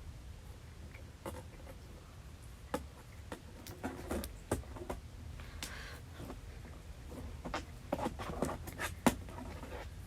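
Hands squishing and poking a thick, non-sticky slime, giving irregular soft clicks, pops and crackles that come faster and louder near the end.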